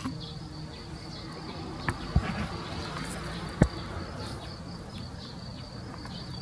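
Insects chirring steadily at a high pitch over a low background rumble, with a few sharp knocks about two and three and a half seconds in, the last the loudest.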